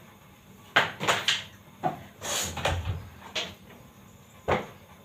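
Kitchen clatter: a string of sharp knocks and clicks, about six in five seconds, from things being handled in a small room, with a longer rough scraping noise around the middle.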